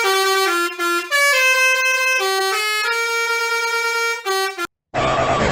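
A truck's musical horn playing a tune of held notes that step up and down in pitch. It cuts off about four and a half seconds in, and a harsh, distorted version starts just after.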